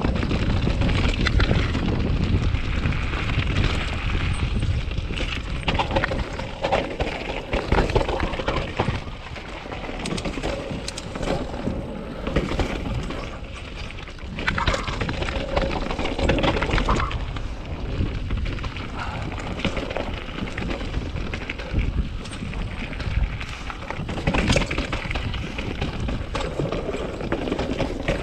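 2020 Norco Sight full-suspension mountain bike riding fast down a rough dirt trail: a steady rushing noise of tyres on dirt and air, with frequent knocks and clatter from the bike as it rolls over roots and rocks.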